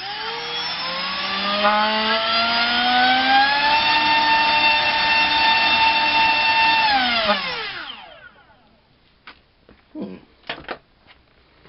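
RCinpower QAV2206-1900KV brushless drone motor spinning a 5x4 three-bladed prop on a 3-cell battery for a thrust test: a whine that climbs steadily in pitch as the throttle comes up, holds level for about three seconds, then winds down and stops about eight seconds in. A few short knocks follow near the end.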